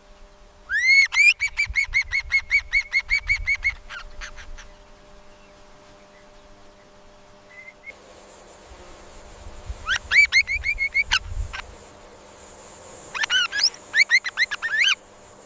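Budgerigar chirping: three bouts of quick, repeated high chirps, about a second in, near the middle and near the end.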